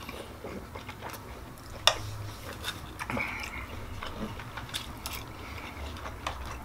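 Eating sounds from a steak meal: chewing, with scattered clicks and scrapes of a knife and fork on ceramic plates and one sharp click about two seconds in.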